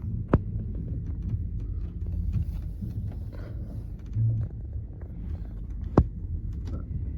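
Train carriage interior while running: a steady low rumble and throb, broken by two sharp clicks and a brief low thud.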